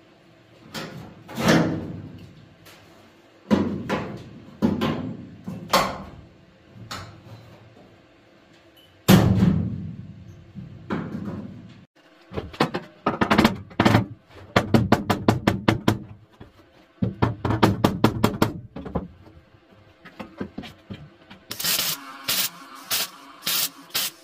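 Hammer blows on the sheet-steel floor and sill of a BMW E21 body shell: single ringing strikes at first, then rapid runs of taps as the new panel is worked into place. Near the end come several short MIG tack welds, each a brief crackle.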